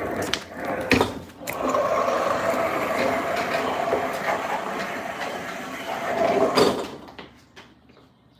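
Chest freezer pushed across a concrete floor on its small casters: a few knocks as it starts moving, then a steady rolling rumble for about five seconds that dies away about seven seconds in.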